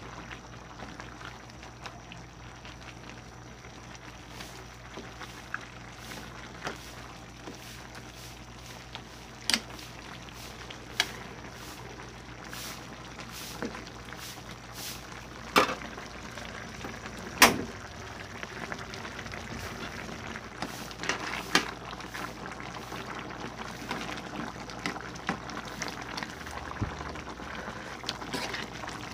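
Pork and vegetable broth bubbling at a boil in a pan, a steady simmering hiss. A metal spoon stirs through it, knocking sharply against the pan now and then, loudest about halfway through.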